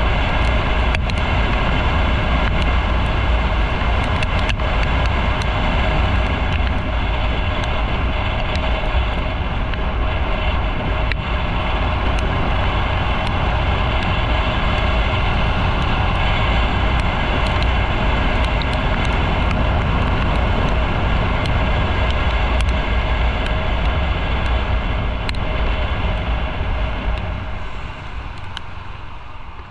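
Motorcycle on the move: engine running under a heavy, steady rush of wind noise, dropping in level near the end.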